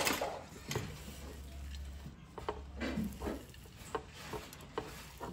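Bare hands squeezing and tossing a heap of chopped fresh herbs on a plate, the leaves giving short, irregular crunching rustles, a few a second.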